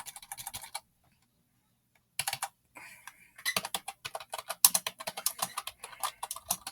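Typing on a loud, clicky ONN computer keyboard: quick runs of key clicks, a brief pause about a second in, then a longer fast burst of keystrokes.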